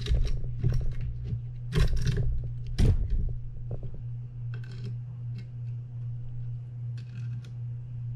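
Metal tools and reel parts being handled: several sharp clicks and knocks in the first three seconds, then a couple of fainter rattles, over a steady low hum.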